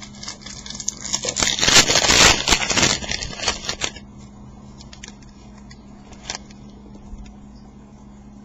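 Foil trading-card pack wrapper being torn open and crinkled for about four seconds, then only a faint steady hum.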